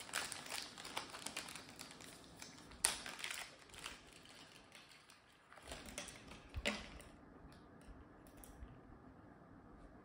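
Clear plastic bag crinkling and rustling while it is handled and opened, with small clicks and taps from the parts inside. It is busiest in the first few seconds, with a sharp click about three seconds in and another flurry around six to seven seconds, then goes quieter.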